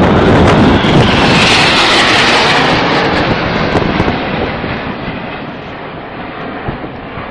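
BAE Hawk T1 jets of the Red Arrows passing overhead in formation and breaking away to land, their jet engines loud at first with a rushing whine about two seconds in, then fading steadily as the aircraft split and draw away.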